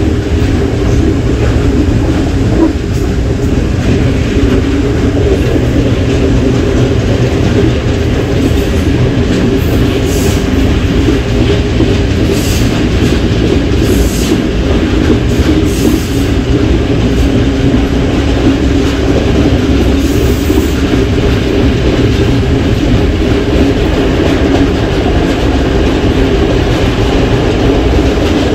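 A train running along the track, heard from on board: a steady, loud rumble of wheels on rails. A few short high-pitched hissing streaks come about a third to half of the way through.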